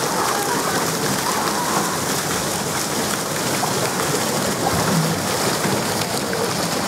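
Steady hiss of falling and splashing water from the sprays and fountains of a children's water park.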